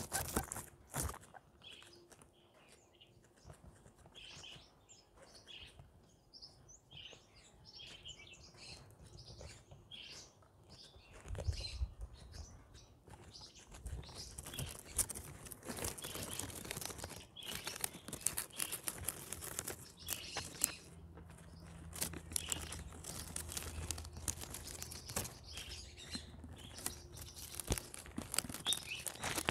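Guinea pigs chewing and tearing at plants: a long run of small crunches, tears and rustles, with faint high chirps among them.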